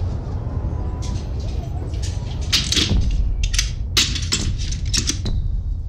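A string of short scrapes and rattles from an old wooden window being handled and opened, over a steady low rumble.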